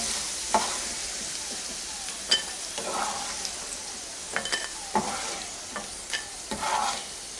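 Diced potatoes sizzling in hot oil in a kadai, with a wooden spatula scraping and knocking against the pan several times as the fried cubes are lifted out.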